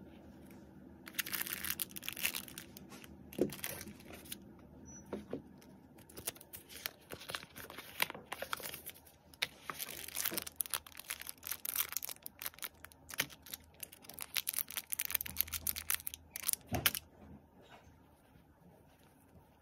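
Clear plastic accessory bags crinkling and rustling as they are handled and unpacked, in irregular bursts of crackling that start about a second in and die down near the end.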